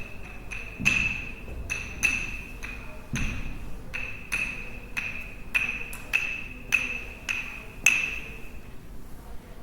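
Sticks struck in a steady, even rhythm, a hit roughly every half second or so, each one ringing at the same bright pitch before dying away. The last hit, near the end, rings out longest.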